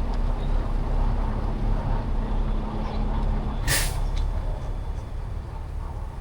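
Semi-truck diesel engine running with a steady low rumble, with a short sharp hiss of air from the air brakes a little over halfway through.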